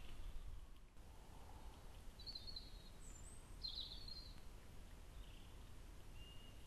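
Quiet outdoor background with a steady low rumble, and a handful of short, high bird chirps scattered from about two seconds in.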